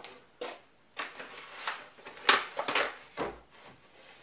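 Thin plywood back panel being slid and set into a wooden picture frame: a string of short scrapes and light knocks, the loudest a little over two seconds in, with a dull thump about three seconds in.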